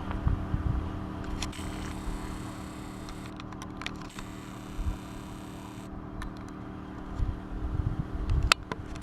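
Steady low hum with irregular low rumbling and a few faint clicks, the sharpest click near the end; no chime melody is playing.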